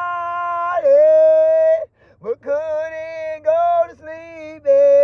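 A series of loud, drawn-out pitched calls, each held at a steady pitch for up to a second and broken by short gaps, with a quick upward swoop about two seconds in.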